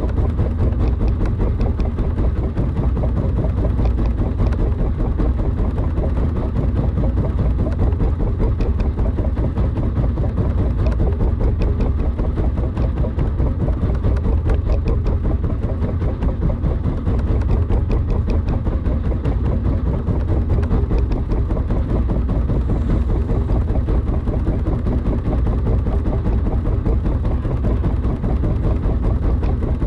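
A fishing boat's engine running steadily at a constant pace.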